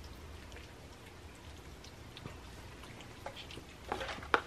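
Cats lapping and chewing wet fish cat food in broth: soft, scattered wet clicks and smacks. About four seconds in, a flurry of louder clicks ends in one sharp knock as a paper plate is pushed across the platter.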